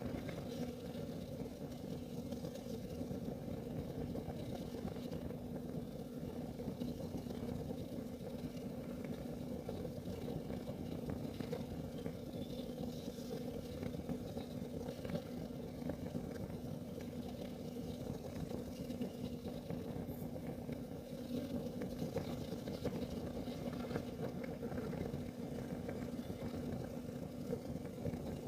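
Kerosene heater burning steadily: an even low rumble with a constant hum, and faint occasional ticks.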